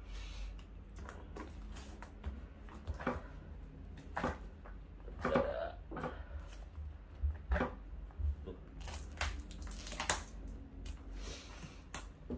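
Scissors cutting into the packing tape and cardboard of a parcel: irregular snips, crackles and scrapes, with a longer ripping stretch about nine seconds in.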